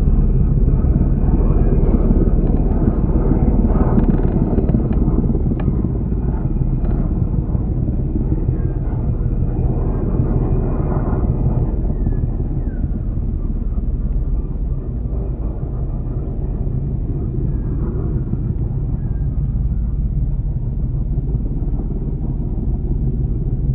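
Eurocopter EC145 twin-turbine helicopter in flight: a steady, loud low rumble of its rotors and engines that slowly grows quieter.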